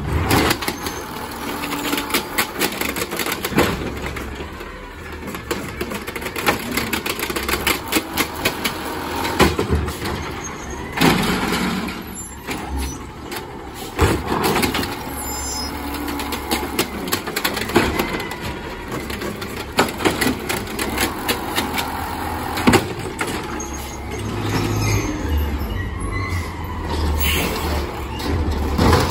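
Automated side-loader garbage truck, natural-gas powered, working curbside pickup: its engine runs and revs while the hydraulic arm grabs, lifts and dumps the carts. Sharp bangs of carts knocking against the arm and hopper come a few times, about ten seconds apart.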